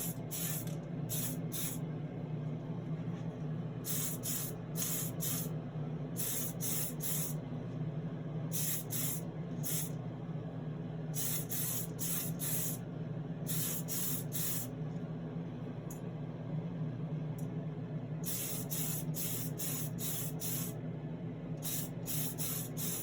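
Aerosol can of grey Tamiya Fine Surface Primer spraying in short bursts, often two to four in quick succession, as light coats go onto a small die-cast body. A steady low hum runs underneath.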